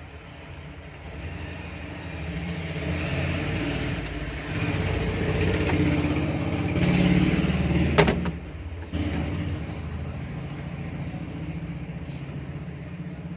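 A small electric motor running with a steady buzz that grows louder and shifts in load, with a sharp click about eight seconds in.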